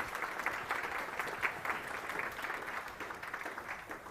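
Audience applauding, the clapping thinning out near the end.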